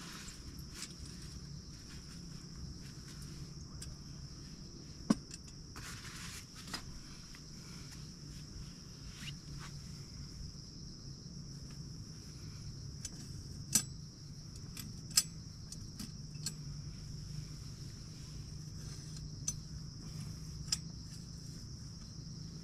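Insects chirring steadily in a high, even tone, with a few sharp clicks and small knocks from handling a camping gas stove and its canister, the loudest about five seconds in and twice more near fourteen and fifteen seconds.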